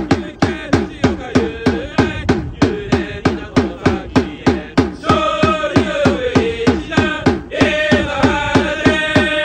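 Marching drum beating a steady cheer rhythm of about four hits a second, with overdubbed voices chanting a baseball player's cheer song over it in two phrases, the second starting near the end.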